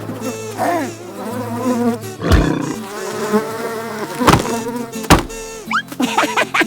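Cartoon bee-buzzing sound effect, wavering in pitch, cut through by three sharp hits in the middle and a run of quick chirping glides near the end.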